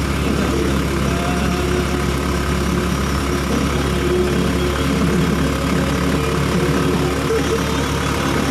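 Honda Supra Fit motorcycle engine running steadily under a constant hiss of wind and road noise.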